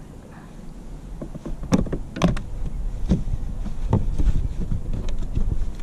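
Handling clicks, knocks and creaks as a fish-scent container is opened and the scent applied to a lure, over a steady low rumble.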